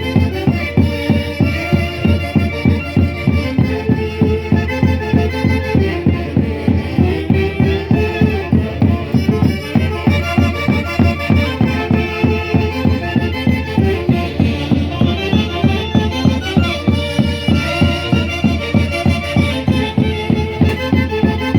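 Band music with a steady, even beat and sustained melody lines playing throughout.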